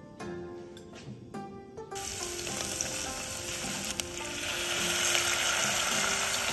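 Spring onions, garlic and ginger frying in hot oil in an enamelled cast-iron pot: a loud, steady sizzle that starts about two seconds in as liquid is poured over them and cuts off abruptly at the end. Plucked-string music plays before the sizzle starts.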